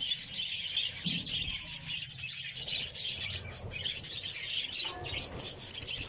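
A colony of budgerigars chattering continuously: a dense, unbroken mix of rapid warbles and chirps from many birds.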